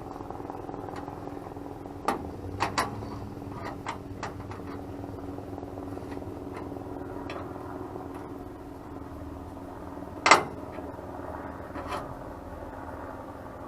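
Scattered sharp metal clicks and clanks of hand-tool work on a steel hitch, from needle-nose pliers bending metal to line up bolt holes. There are a few clicks in the first few seconds and a louder clank about ten seconds in, over a steady hum.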